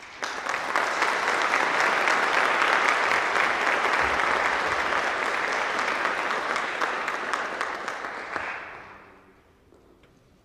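Audience applause: many hands clapping, starting abruptly and dying away about nine seconds in.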